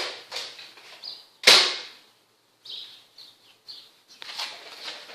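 Spring-powered Nerf blaster firing a single shot about a second and a half in: one sharp snap.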